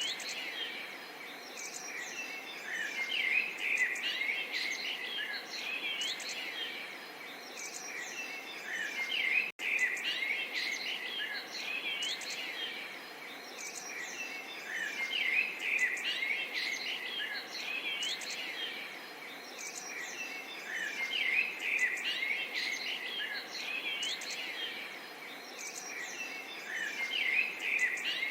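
A chorus of small songbirds chirping and singing densely, over the soft steady trickle of water. The birdsong swells and fades every few seconds and cuts out for an instant about ten seconds in.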